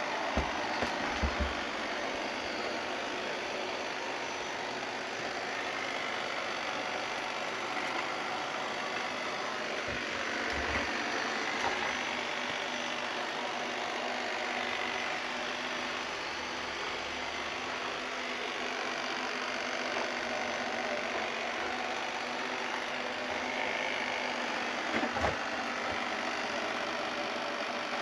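Eufy LR30+ robot vacuum running with a steady motor and brush whir, with a few dull thumps along the way.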